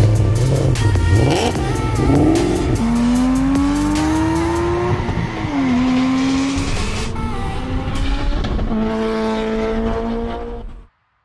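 Turbocharged 5.3 L LS V8 in a 1993 Chevy 1500 pulling hard. Its pitch climbs steadily, drops about five seconds in as it shifts, then holds steady until the sound cuts off abruptly near the end.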